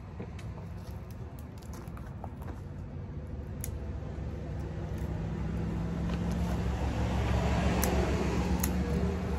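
A motor vehicle's engine hum growing steadily louder from about halfway through, becoming the loudest sound near the end, over a few sharp cracks of dry sticks being snapped by hand for firewood.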